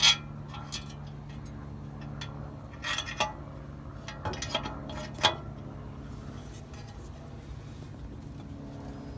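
Metal clinks and knocks from a fan spacer, fan and hand tools being handled while they are fitted to a water pump pulley: a sharp clink at the start, then a few scattered ones, over a steady low hum.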